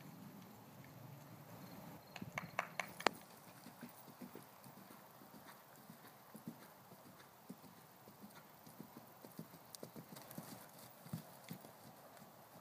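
Faint hoofbeats of a draft-cross Hanoverian mare cantering on grass, a run of dull thuds. A cluster of sharper, louder clicks comes about two to three seconds in.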